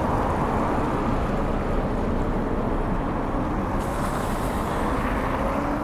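Steady road traffic noise of cars and trucks on a multi-lane city road, heard from a moving bicycle. A brighter hiss joins about four seconds in as a vehicle passes.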